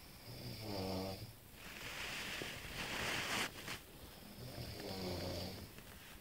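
A sleeper snoring: two snores about four seconds apart, each a low buzzing rattle, with a long rushing breath between them.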